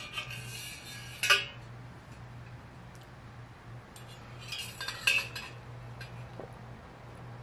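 Metal clinks and scrapes from a stainless-steel water bottle being handled, its top and straw knocking against the steel rim. There is a sharp clink about a second in and another cluster of clinks around five seconds in, over a faint steady low hum.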